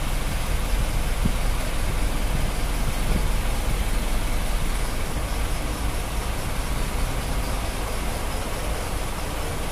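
Truck engine idling: a steady low rumble that does not change.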